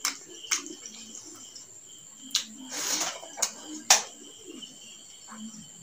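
Close-up eating sounds of a man taking rice and curry by hand: wet chewing with several sharp mouth smacks, the loudest about four seconds in, and a short rush of noise near the middle. A steady high cricket trill continues underneath.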